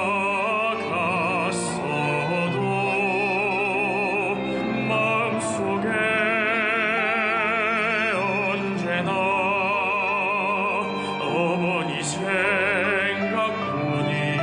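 Music: a slow melody with wide vibrato over sustained accompaniment, in an operatic style.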